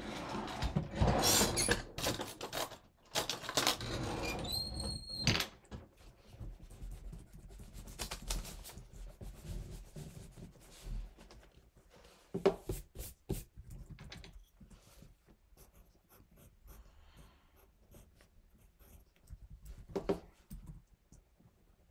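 Rustling, shuffling and knocking of movement at a desk, with a short high squeak about five seconds in, then scattered clicks of laptop keyboard typing and small thumps of paper and pencil handling.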